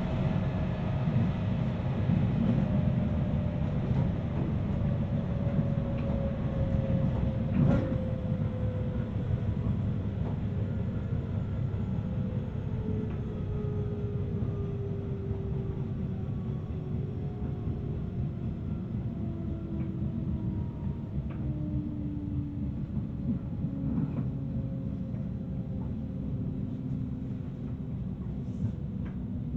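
Inside a 719 series AC electric multiple unit running and slowing down: steady running rumble with a whining tone from the drive that falls slowly in pitch as the train decelerates. This whine is the jet-like noise the uploader flags on this car as possibly abnormal. A single sharp knock comes about eight seconds in.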